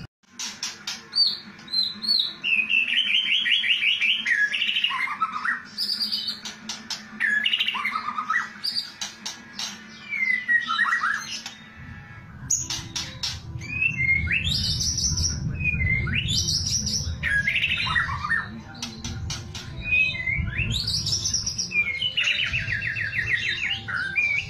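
White-rumped shama (murai batu) singing: loud whistled phrases that slide up and down, broken by sharp clicks and fast rattling trills (the 'kretekan' call), one trill a couple of seconds in and another near the end.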